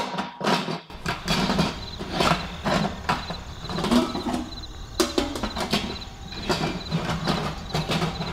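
Plastic lid of an Instant Pot Duo Plus pressure cooker being twisted and jiggled on its stainless-steel cooker base: repeated clattering and scraping of lid on rim, over a steady low hum. The lid is stiff and will not come off easily.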